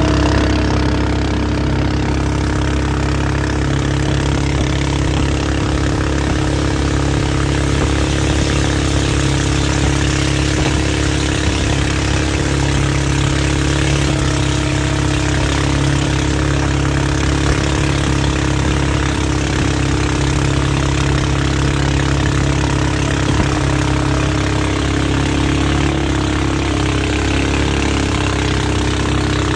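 459cc four-stroke engine on a Mud-Skipper Sport surface-drive mud motor running steadily under load, pushing a jon boat along, over a steady hiss. Its pitch shifts slightly near the end.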